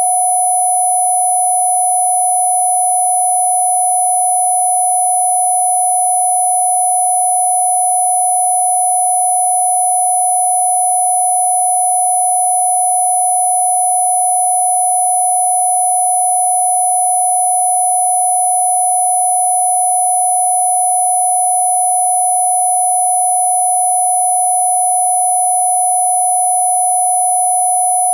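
Electronically generated steady sine tone played as a Rife-style cough-relief healing frequency. It is one clear mid-pitched tone held without any change in pitch or loudness, with fainter high tones above it.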